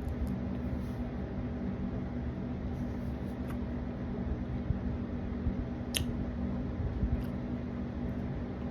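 Quiet eating sounds, chewing with a few faint clicks and one sharper click about six seconds in, over a steady low hum.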